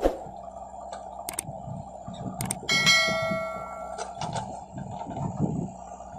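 JCB backhoe loader and tractor engines running steadily, with knocks and clanks from the digging arm and bucket. Near the middle there is a loud metallic clang that rings on for more than a second like a struck bell, typical of the steel bucket striking metal.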